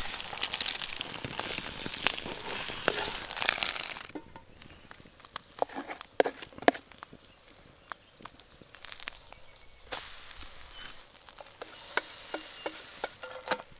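Eggs sizzling in oil in a small frying pan over a campfire. A few seconds in the sizzle drops away to a fainter hiss, and a metal spoon clicks and scrapes against a pot and pan as pancake batter is spooned into the greased pan.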